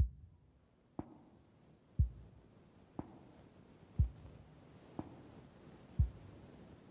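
A slow, even pulse of soft deep thumps about once a second, a heavier low beat alternating with a lighter, sharper one, over a faint hiss: the opening beat of the soundtrack.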